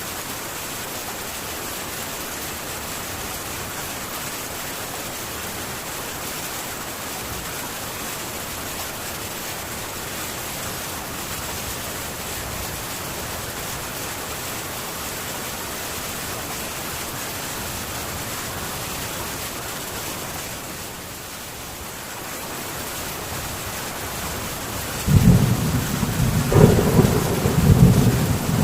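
Steady heavy rain falling on a metal tin roof. Near the end a loud, low rumble of thunder starts suddenly and keeps rolling.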